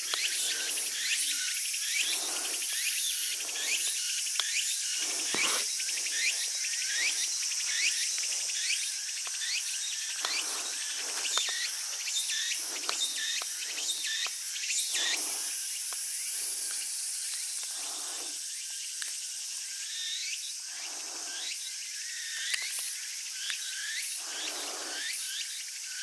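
Dense summer insect chorus: steady high-pitched shrilling with many short rising calls over it, and a softer, lower pulsing sound about once a second.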